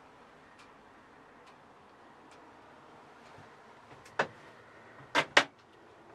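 Faint steady hiss broken by a few sharp knocks: a single knock about four seconds in, then a louder pair close together about a second later.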